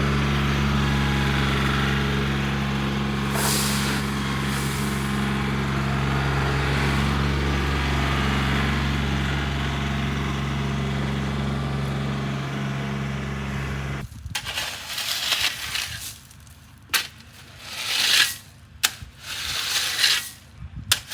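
A truck engine running steadily, cutting off abruptly about 14 seconds in. It is followed by several short, irregular bursts of hissing or scraping noise with quiet gaps between.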